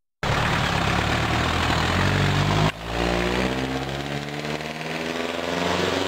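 A motor vehicle's engine running close by. There is a brief break about two and a half seconds in, after which its note falls slowly.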